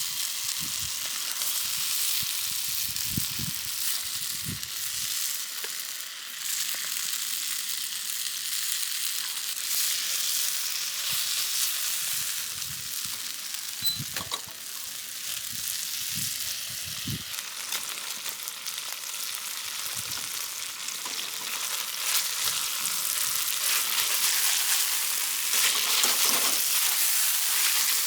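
Food frying on a hot cooking surface: a steady crackling sizzle with a few soft knocks, growing louder in the last few seconds.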